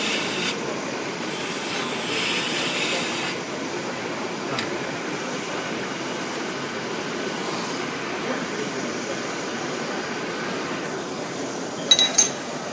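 Lathe running steadily, with a hissing cutting noise in two stretches during the first few seconds, then running on without cutting. Two sharp clicks near the end.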